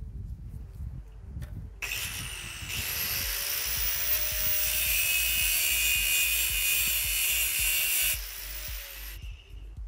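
Electric power tool cutting open the metal case of a diesel particulate filter. It spins up about two seconds in, cuts with a loud, steady noise and a high whine, then stops about eight seconds in and its whine falls as it winds down.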